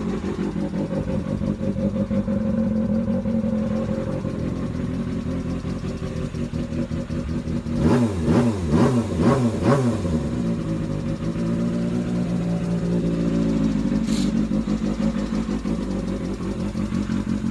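Kawasaki Balius inline-four engine idling through a handmade silencer. About eight seconds in it is blipped four times in quick succession, then it settles back to a steady idle.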